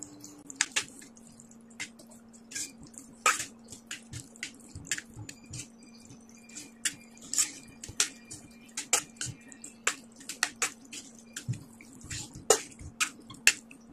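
Metal spoon stirring minced pork in water in a stainless steel pan, clinking and scraping against the pan in irregular clicks, several a second at times, while the pork poaches. A faint steady hum runs underneath.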